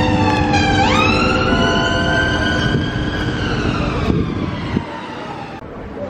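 Emergency vehicle siren wailing over traffic noise: its pitch dips, sweeps up quickly about a second in, then slides slowly down and fades out near the end.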